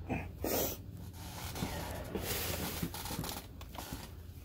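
Rustling and handling noises as clothes and a bag are moved about, with a few short sharp sounds among them.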